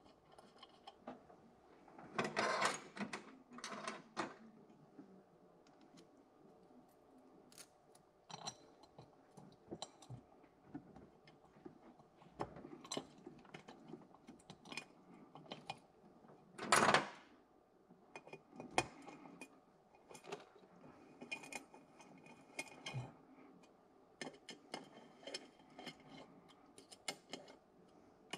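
Small metallic clicks and taps as stainless steel bolts and washers are threaded in by hand to fasten the TPI intake runners, with two louder knocks, about two seconds in and again near the middle.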